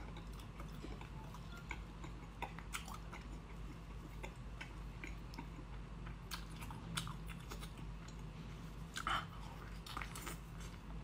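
A person biting and chewing food, heard as scattered faint wet clicks and smacks over a low steady hum.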